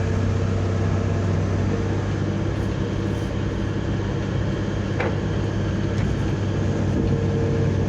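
Cat 320B hydraulic excavator's diesel engine running steadily under load, with a single short click about five seconds in.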